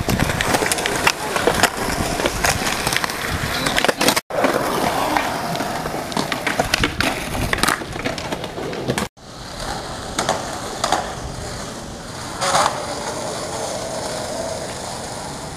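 Skateboard wheels rolling over concrete, with sharp clacks of the board popping and landing. The sound cuts off abruptly twice.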